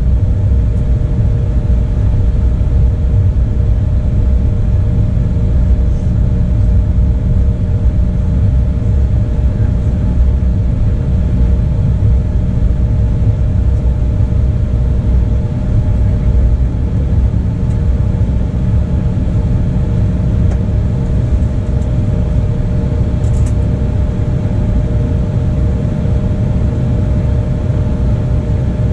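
Steady cabin noise inside an Embraer 175 regional jet: a low rumble from its GE CF34-8E turbofans and the airflow, with two steady humming tones over it.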